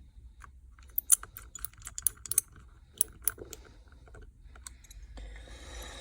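Scattered light clicks and taps of small tools and phone parts being handled during iPhone repair work, in irregular clusters with a few sharper ticks.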